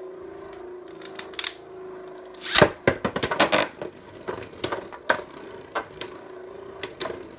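Beyblade Burst spinning tops launched into a plastic stadium: a sudden loud rush about two and a half seconds in, then a quick run of hard plastic clacks as the tops collide, easing to scattered single clacks. A steady hum runs before the launch.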